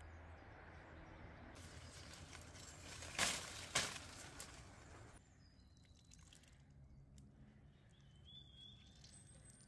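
Orange-tree leaves and branches rustling as oranges are pulled off by hand, with two sharp clicks a little past three seconds in. In the quieter second half a bird chirps a few times.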